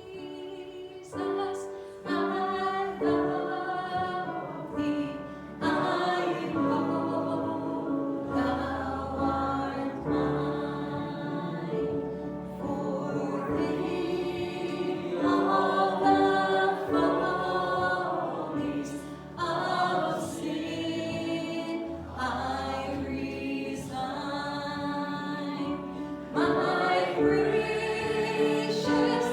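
A slow hymn sung by a group of voices, in long held phrases.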